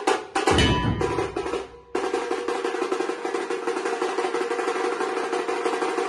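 Dhol-tasha drum ensemble playing. A few hard unison strokes and one heavy deep beat ring out into a brief pause. About two seconds in, the full group comes back in with fast, dense, steady drumming.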